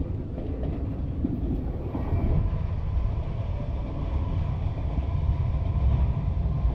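Two passenger trains passing at once, one running under the footbridge: a steady low rumble of wheels on rails that grows a little louder about two seconds in, with faint steady tones above it.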